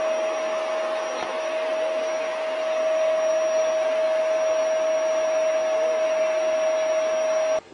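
An electric appliance motor running steadily, with a rush of air and a steady whine; it cuts off suddenly near the end.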